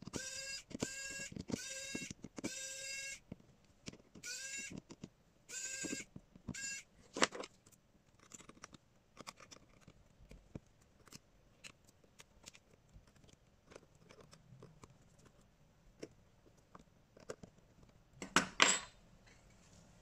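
Repair tools working on a smartphone's glass and frame during a screen replacement. A run of short rising squeaks, about one or two a second, gives way to scattered light clicks and taps, then a louder scraping rush near the end.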